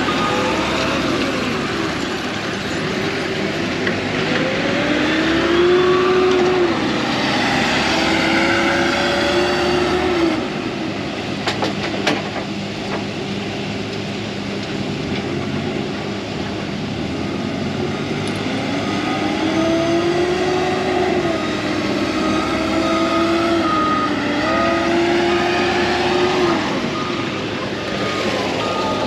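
A heavy vehicle's engine revving up, holding and dropping back twice, with a reversing alarm beeping near the start and again near the end.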